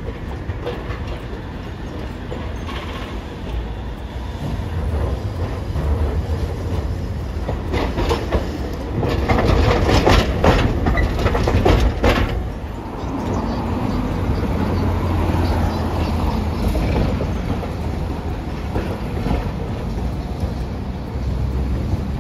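Hiroden streetcar passing close by, its wheels clacking in a quick run as they cross the junction's rail crossings, loudest about ten seconds in, over a steady low rumble of street traffic.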